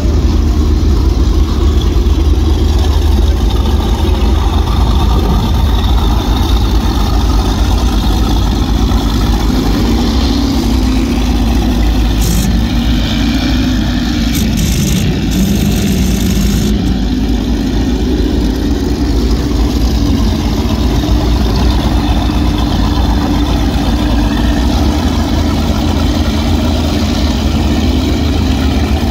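Engines of high-performance offshore powerboats running at low speed with a deep, steady rumble, their pitch rising and falling around the middle as the boats throttle and pass.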